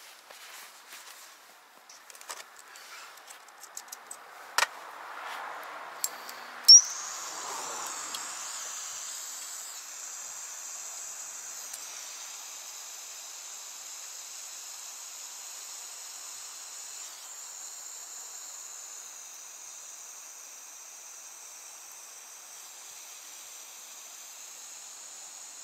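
Small butane torch lit with a sharp click about seven seconds in, then hissing steadily. Its pitch climbs briefly as the flame settles. Before that come a few small clicks and knocks of handling.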